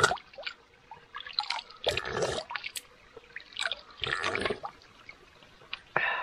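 Stream water being scooped by hand and slurped from a cupped hand, in three bursts about two seconds apart, with water dripping and splashing back into the shallow stream in between.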